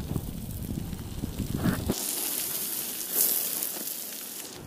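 Hiking boots crunching and scuffing on loose sandy gravel on a downhill trail, with wind rumbling on the microphone for about the first two seconds.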